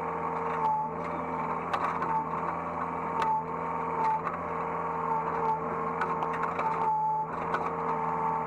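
Hydraulic excavator running, heard from the operator's seat: a steady diesel engine drone with a whining tone that dips briefly several times as the machine works, and scattered light knocks and clatter.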